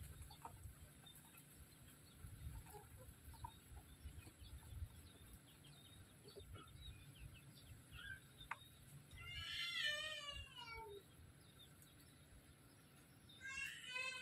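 An animal calling twice: a drawn-out call falling in pitch about nine seconds in, and a shorter one near the end, over a faint low rumble.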